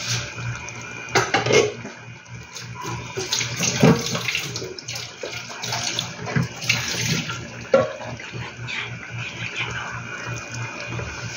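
Shrimp curry simmering in a pan, the coconut-milk sauce bubbling with irregular pops and a few louder splashes.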